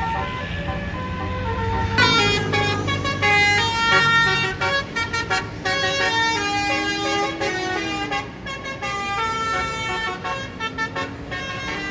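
Bus basuri 'telolet' horn playing a quick tune of short, high notes, over the low rumble of the bus's engine. A louder run of notes starts about two seconds in.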